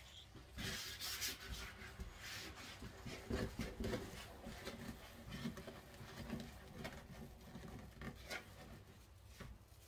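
Soft, irregular rustling and rubbing of thin, sheer deco mesh as it is pulled, laid flat and twisted into the ties of a wreath form.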